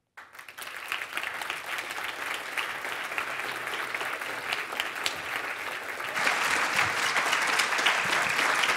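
Audience applauding, the clapping starting at once and growing louder about six seconds in.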